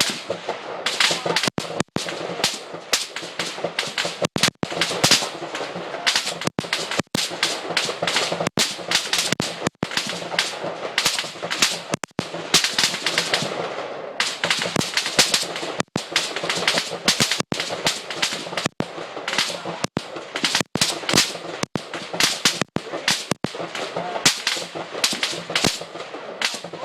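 Steady, irregular rifle fire from many M16s on a rifle range, heard from the target pits: sharp cracks several times a second, overlapping with no pauses.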